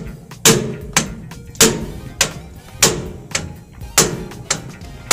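Ball-peen hammer striking steel on a truck trailer's axle and hub assembly. The blows are sharp, ringing metal strikes that come about every half second, alternating heavier and lighter hits.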